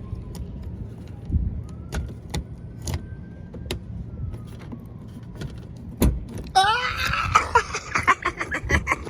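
A spare key being worked in a Corvette's manual lock at the rear: keys jangle and scattered clicks and knocks, then a heavy clunk about six seconds in, followed by a run of wavering high-pitched squeaks near the end.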